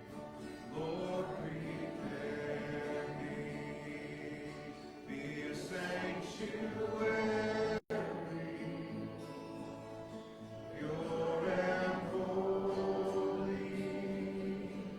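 Group of voices singing a worship song with instrumental accompaniment. The sound cuts out completely for an instant about halfway through.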